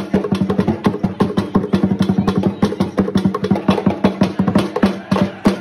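Traditional Ghanaian drum ensemble playing a fast, dense rhythm of sharp strikes, many to the second, as dance accompaniment.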